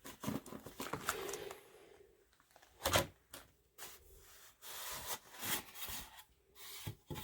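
Cardboard packaging being handled: rustling and scraping with a few knocks, the loudest about three seconds in.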